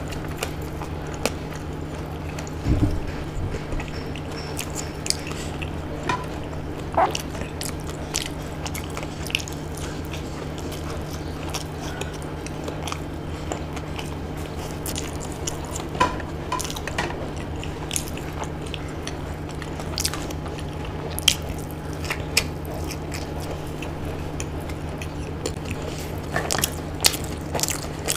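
Close-miked eating by hand: chewing and biting of fried food such as pakoda, with scattered sharp crunchy clicks, a low thump about three seconds in, and a cluster of crunches near the end, over a steady low hum.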